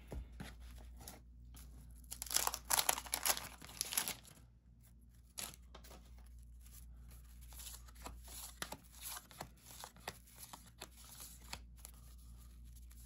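1991 Fleer basketball card pack being torn open: a burst of tearing and crinkling wrapper about two seconds in, then light rustling and clicks as the wrapper and cards are handled.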